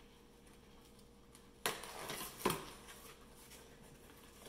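Cardboard shipping box being opened by hand: a sudden scraping rustle of the flaps and liner a little over a second and a half in, ending in a sharp knock.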